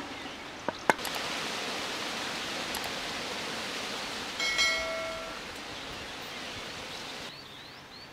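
Two sharp knocks of a knife on a wooden cutting board, then a steady outdoor hiss. Partway through comes a brief, steady pitched tone lasting about a second. The hiss cuts off near the end, leaving a few faint bird chirps.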